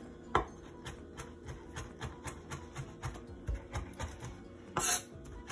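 Chef's knife rough-chopping fresh cilantro on a wooden cutting board: rapid, even knocks of the blade on the board, about four a second, with a sharper knock just after the start and a longer, louder burst near the end.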